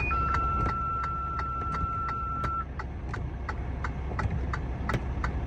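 Vehicle engine idling with a steady low hum, heard from inside the stopped vehicle, with a quick regular ticking about three or four times a second. A steady electronic beep tone sounds for the first two and a half seconds, then stops.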